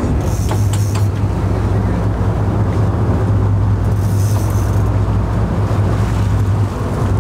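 Sportfishing boat's engine running with a steady low drone under wind and water noise, with short hissing bursts about a second in and again about four seconds in.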